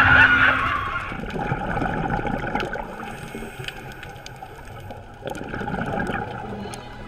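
Crowd of many people talking at once at a busy party, a dense murmur that drops in level about a second in.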